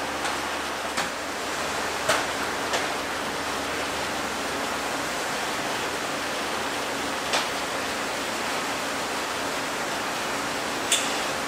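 Steady even hiss, with a handful of sharp knocks and clicks, scattered and a few seconds apart, from handwork on a metal-framed louvered inlet shutter.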